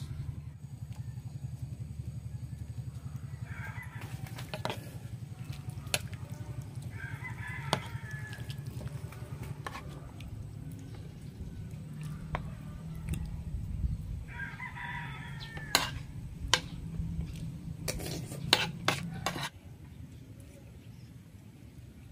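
A metal spoon clinking and tapping against the dishes while eating, a handful of sharp clinks. In the background a rooster crows about three times, over a steady low hum that stops near the end.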